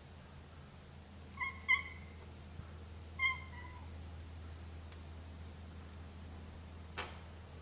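Domestic cat meowing: a short two-part meow about one and a half seconds in, then a second, slightly falling meow a second and a half later. A single sharp click near the end.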